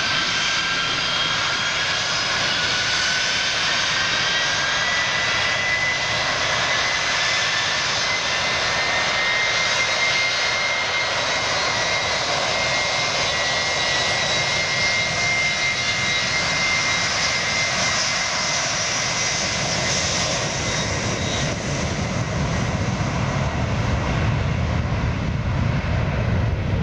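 Four Soloviev D-30KP turbofans of an Ilyushin Il-76TD running with a high whine that rises in pitch for about six seconds, then holds steady. In the last several seconds a low rumble builds as the jet powers up for its takeoff roll.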